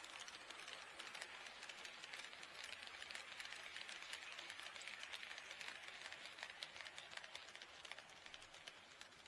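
HO-scale model train running along the track: a rapid, dense patter of small clicks from the wheels on the rails with a light running hiss, getting louder through the middle as it passes and fading near the end.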